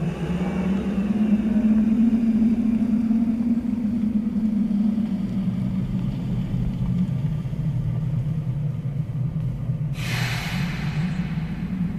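Car engine running with a steady low rumble that swells over the first couple of seconds as the car drives up and then keeps running at rest. A brief hiss cuts in and out about ten seconds in.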